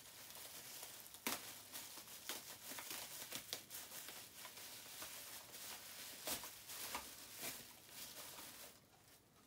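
Thin plastic bag crinkling and rustling as hands rummage in it and open it, with many small sharp crackles; it dies down near the end.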